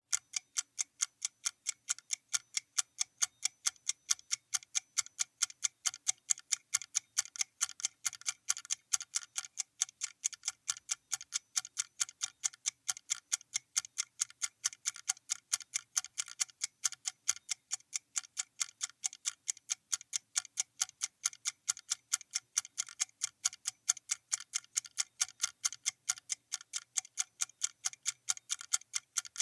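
Clock-ticking sound effect: a rapid, even train of sharp, crisp ticks that does not change, the count of a countdown timer.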